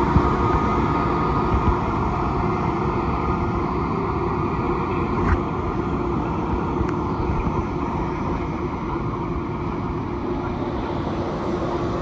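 ICE 2 high-speed electric train moving past at low speed. The power car's traction motors whine at first and fade, then the coaches go by with a steady rolling rumble and a couple of sharp clicks from the wheels on the track.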